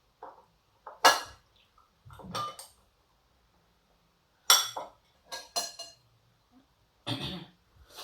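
Cutlery clinking and scraping against dishes, in about six separate short sounds with quiet between them.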